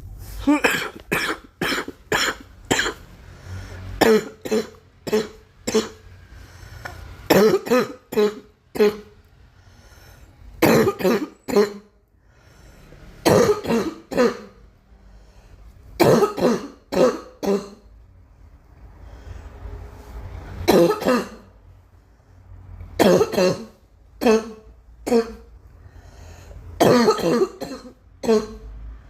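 A girl coughing in repeated fits of two to five sharp coughs, with short pauses between the fits.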